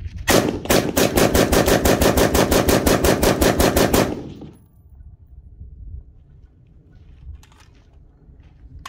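Lead Star Arms Grunt AR-15 pistol with a 10.5-inch barrel firing 5.56 ammunition in a fast, even string of about 25 to 30 shots, about seven a second. The string lasts about four seconds and stops.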